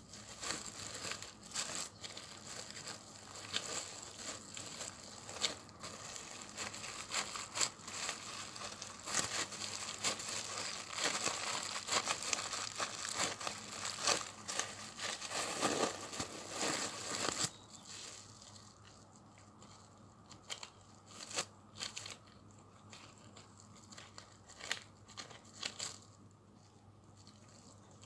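Plastic cling film over a bamboo sushi mat crinkling and rustling under gloved hands as a sushi roll is pressed and rolled. The rustle is dense for about the first two-thirds, then thins to scattered crackles and taps.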